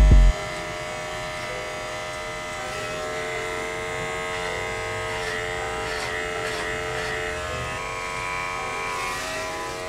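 Corded electric hair clippers without a guard, buzzing steadily as they shave hair off the side of the head, with a slight shift in pitch near the end. A music beat cuts off just after the start.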